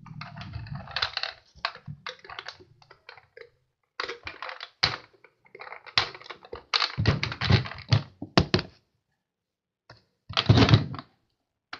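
A plastic Hess toy fire truck being handled: clusters of clicks and knocks as it is picked up and turned over in the hand, with a louder knock about ten and a half seconds in.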